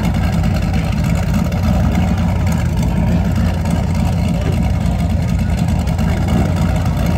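A car engine idling close by, a steady low rumble.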